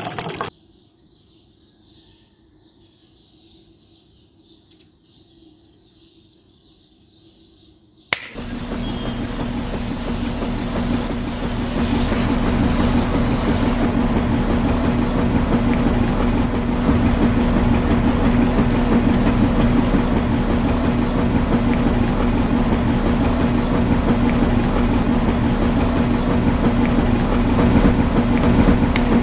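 Faint background for several seconds, then a click and a small machine starting up and running steadily with a hum and a rattle, a little louder a few seconds later.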